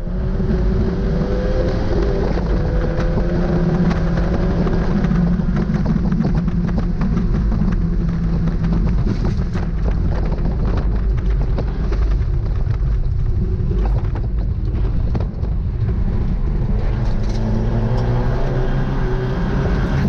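Fiat 500 race car's engine running hard on track, heard from inside the cabin with road and wind noise. The engine pitch climbs slowly over the first few seconds, then holds fairly steady.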